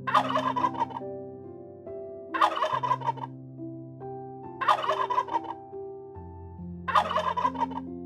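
Turkey tom gobbling four times, about two seconds apart, each gobble a short rapid rattling call, over soft sustained background music.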